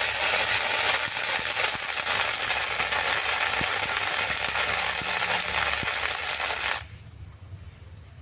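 Water lily seeds popping in hot sand in a wok: a dense, steady crackle with scattered sharp pops, which cuts off abruptly about seven seconds in.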